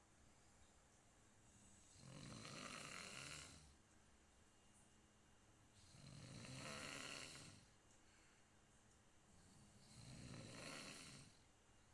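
A person snoring in sleep: three faint snores about four seconds apart, each lasting about a second and a half.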